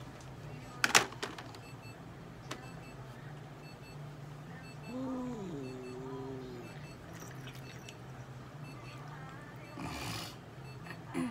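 A Japanese domestic cat giving one low, drawn-out meow about five seconds in, rising at first and then held for over a second. A sharp clatter about a second in is the loudest sound, a brief rustle comes near the end, and a steady low hum runs underneath.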